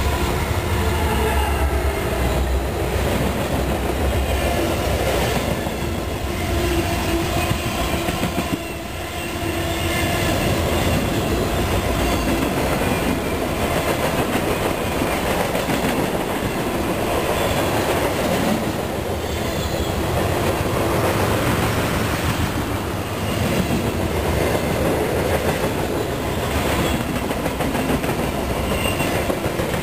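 Freight train passing close by: the diesel engines of a GE D9-40CW and an EMD SD60I locomotive give a heavy low rumble in the first few seconds, then a long string of freight cars follows with steady wheel-on-rail noise and a regular clicking of wheels over rail joints.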